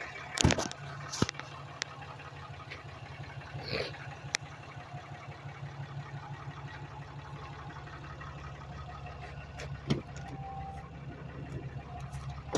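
2018 Ram 3500 pickup engine idling steadily with its newly replaced fuel lines, with a few short knocks near the start, about four seconds in and about ten seconds in.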